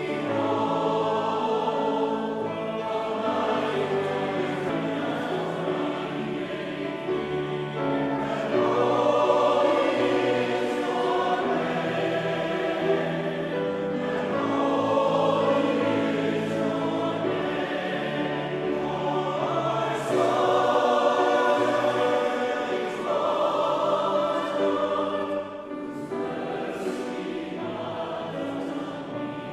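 A choir singing a hymn in sustained chords, the phrases swelling and easing, with a softer passage near the end.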